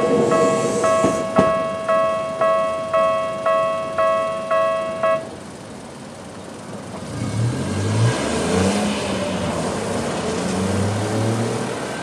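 Electronic level-crossing alarm with the Tokyu-type bell tone, ringing about twice a second, stops about five seconds in once the train has cleared. After a short lull, car engines start up and vehicles move off across the crossing.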